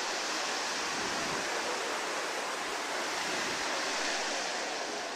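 Small waves breaking and washing up on a beach: a steady rush of surf.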